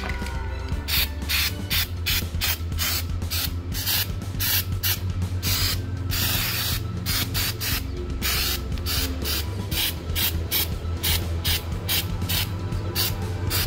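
Aerosol can of 3M rubberized undercoat spraying in many short bursts, about two or three a second, with one longer spray of about a second just past the middle.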